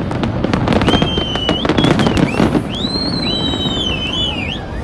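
Fireworks bursting in rapid cracks and bangs that thin out and die away about halfway through. Shrill high whistles, held and sliding in pitch, carry on over the fading display.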